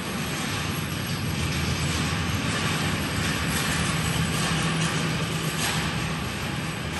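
Can-Am Renegade XMR 1000R's Rotax V-twin engine idling steadily.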